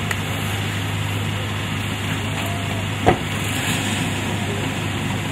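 Steady low hum of a vehicle engine idling, with one short knock a little after three seconds in.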